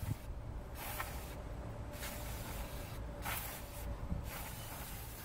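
Aerosol brake cleaner hissing out in several short bursts, sprayed onto a rear drum brake assembly to flush out built-up brake dust.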